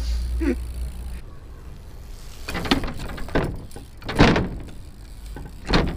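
BMX bike riding on a skatepark ramp: a low rolling rumble at first, then a series of knocks and thuds from the wheels and frame hitting the ramp, the loudest about four seconds in.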